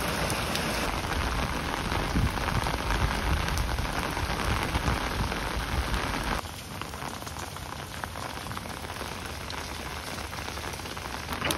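Rain falling on wet pavement and street, a steady hiss that drops to a softer level about halfway through.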